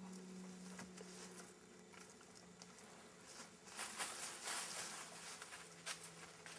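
Grapevines and branches rustling and scraping as they are woven through a wooden pole shelter frame, louder from about halfway through, with a few sharp clicks. A faint steady hum runs underneath.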